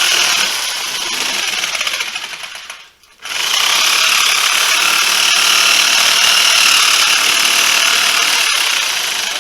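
Power sheet-metal nibbler running, its punch chattering rapidly as it cuts through 16-gauge sheet steel. It stops briefly about three seconds in, then starts again and keeps cutting.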